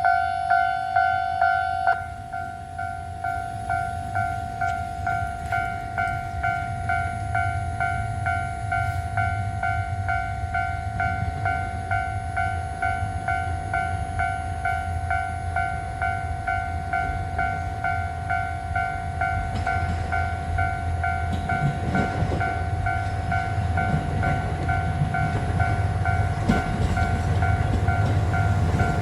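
Japanese railway level-crossing warning bell ringing steadily at about two strikes a second, quieter from about two seconds in. In the last third a train's rumble builds as it approaches the crossing.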